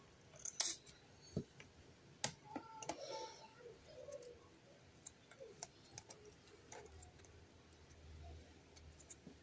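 Faint clicks and light taps of fingers handling a small plastic deli cup and its snap-on lid, a few sharp ticks in the first few seconds. A few faint short tonal sounds in the background about three to four seconds in.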